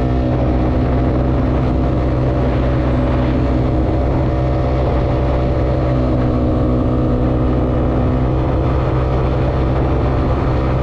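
Yamaha Aerox scooter engine, bored up to 195cc, running steadily at cruising speed, with a heavy low rumble of wind on the microphone.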